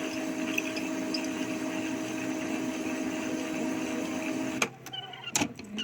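Epson L3150 inkjet printer running a head-cleaning cycle, its pump drawing flushing fluid and ink through the print head: a steady motor whir with a constant hum. It cuts off suddenly near the end, and a sharp click follows.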